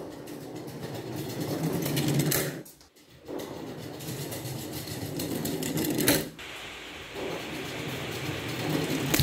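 Rubber-band-powered car with CD rear wheels running across a laminate floor as its wound rubber band unwinds: a steady mechanical whirr, briefly broken about three and six seconds in.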